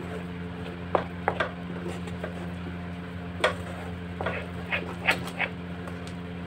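Wooden spatula stirring a thick paneer and milk-powder mixture in a pan, with scattered soft scrapes and knocks against the pan, over a steady low hum.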